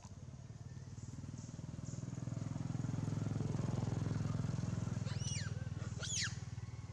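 A motor vehicle engine, likely a motorbike, passing: a steady low hum that grows louder toward the middle and then fades. Two short high-pitched calls sound near the end.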